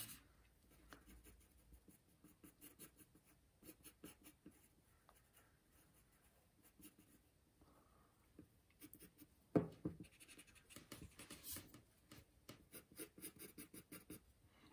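Faint pencil scratching on paper: many short strokes as a figure's arm and hand are sketched, busier in the second half. There is one sharper, louder knock about ten seconds in.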